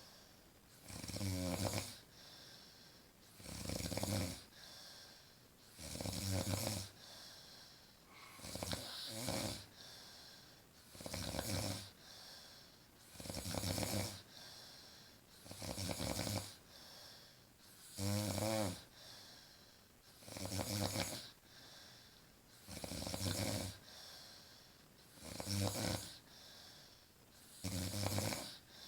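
A woman snoring in deep sleep: a rasping snore about every two and a half seconds, with quieter breathing between snores, some snores with a wavering pitch.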